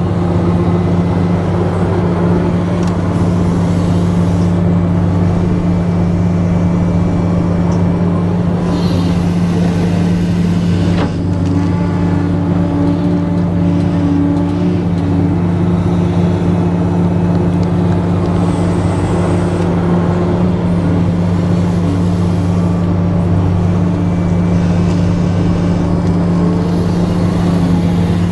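Radio-controlled Volvo excavator running with a steady, loud mechanical hum while its boom is raised and swung. A higher whirring rises and falls away about four times.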